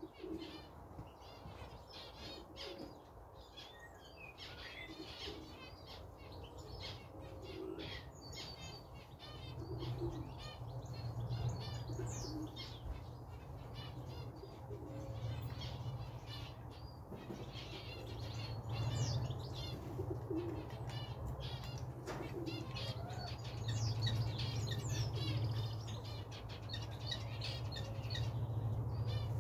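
Small wild birds chirping and twittering throughout, with low, scattered coos from Birmingham Roller pigeons. A low steady hum comes in about a third of the way through and stays.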